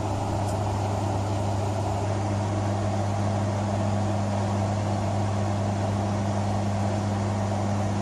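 Cabin noise of a light propeller aircraft in flight: a steady low propeller hum with a second, higher hum, over an even rush of engine and air noise.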